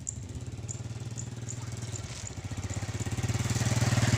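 Small motorbike engine running steadily with a fast, even pulse, growing louder over the last second or so as it comes closer.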